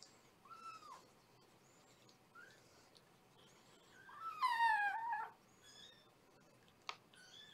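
Young kittens meowing: a few short high cries, then one louder, longer cry about halfway through, with faint high squeaks in between. A single sharp click near the end.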